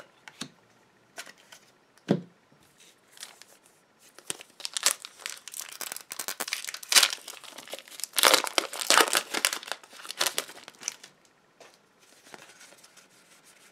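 Foil wrapper of a Pokémon Guardians Rising booster pack being torn open and crinkled, a dense run of crackling from about four to eleven seconds in. A few light clicks of cards being handled come before it, and softer card handling follows.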